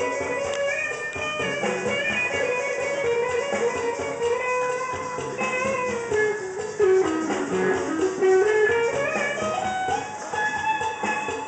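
Guitar music playing a melody, the line sliding down and back up a little past halfway.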